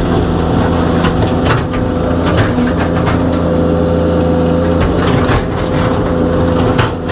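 Excavator's diesel engine running under load, heard from inside the cab, with a steady high whine over it and scattered knocks as the machine digs. The engine note eases a little about five seconds in.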